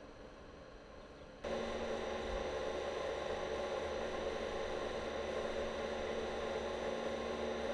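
Steady mechanical hum with several held tones, cutting in suddenly about a second and a half in over faint background noise.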